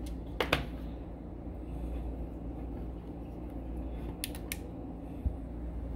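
Small metal clicks from handling the brass plug of an Evva 3KS lock with its key inserted: two just after the start and a quick pair about four seconds in, then a soft low knock, over a steady low hum.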